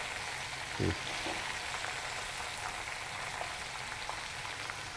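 Batter-coated sweet corn kernels deep-frying in very hot oil in a kadhai: a steady sizzle with many small scattered crackles, the kernels moved slowly with a metal slotted spoon.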